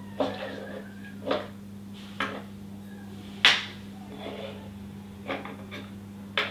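Hard plastic toy pieces knocking and clacking as they are handled and set down, about six separate knocks with the loudest a little past the middle, over a steady low hum.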